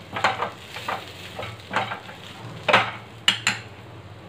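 Metal potato masher pressing boiled potatoes and cooked greens in a stainless steel pan: a series of scraping knocks against the pan, roughly one or two a second. Two sharper metallic clinks come a little past three seconds in.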